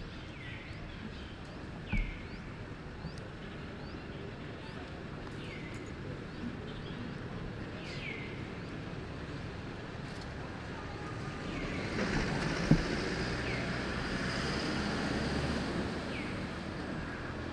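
Outdoor background noise with a short, high, falling chirp repeating every second or two. A broad rushing noise swells up for a few seconds in the second half, with a couple of brief knocks.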